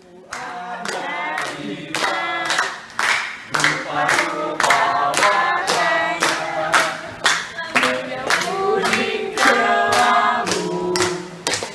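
A group singing a song together, clapping along on a steady beat about twice a second.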